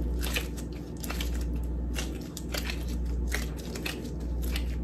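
Gloved hands pressing and rolling a ball of sticky cookie dough: irregular small crackles and clicks from the disposable gloves and dough, over a steady low hum.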